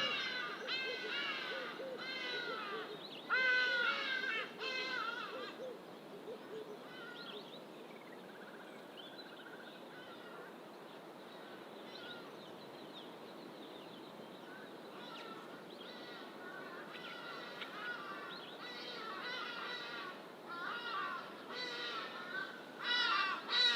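Birds calling in thick bush: bouts of repeated harsh, down-slurred calls for the first few seconds and again through the last third, with a quieter stretch between, over a steady background hiss.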